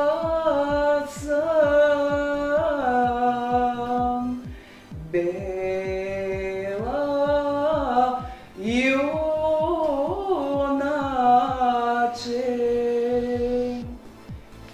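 Background music: a solo voice singing long held notes that bend and glide between pitches, over a steady low beat, with short breaks between phrases.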